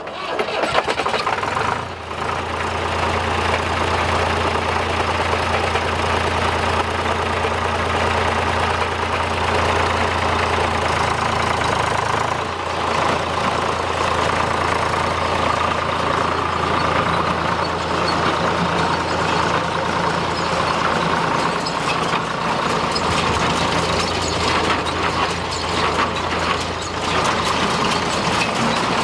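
The New Holland 505 baler's own diesel engine comes up to speed in the first second or so, then runs steadily.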